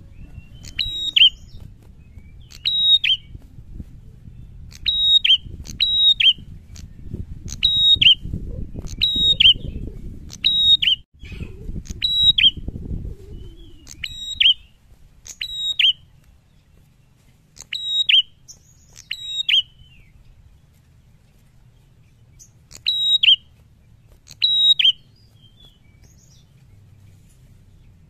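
Caged tailorbird (sold as a prenjak) calling loudly: short, sharp, high two-part notes repeated about once every second or so, each dropping in pitch at its end, with a break of a few seconds before two last calls.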